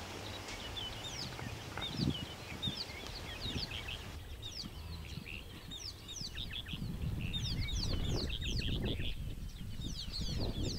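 Birds calling in the bush: a steady scatter of short, high chirps that drop in pitch. A low rumbling noise rises underneath in the second half.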